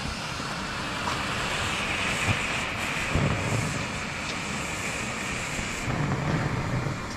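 Steady hiss of burning pyrotechnic flares: a yellow nitrocellulose-based Bengal torch and a purple magnesium flare. A few soft low thumps come through about three and six seconds in.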